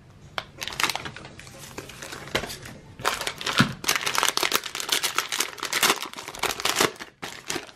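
Plastic trading-card pack wrapping being handled, crinkling in irregular crackles.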